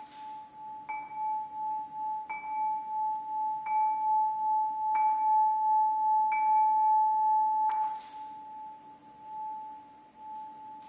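Crystal harp rods struck with a mallet about every second and a half, seven strokes, each ringing on into one steady, sustained glassy tone. The playing swells in the middle and the ringing dies away after the last stroke near the end.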